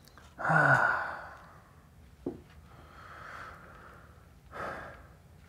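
A man sighs heavily, a long breathy exhale with a short voiced start. A single soft click follows, then a second, shorter sigh about four and a half seconds in.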